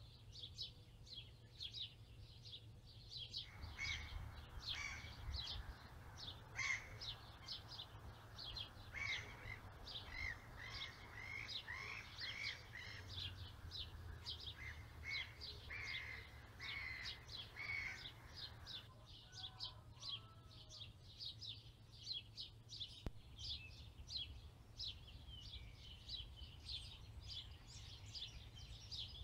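A chorus of songbirds chirping rapidly and continuously. From a few seconds in until about two-thirds of the way through, a steady rushing noise and lower, louder bird calls join in, then cut off abruptly.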